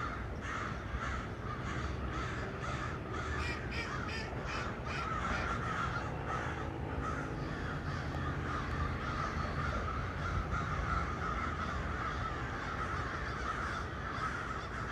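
A group of crows cawing without pause, many calls overlapping into a continuous chorus of harsh, repeated caws.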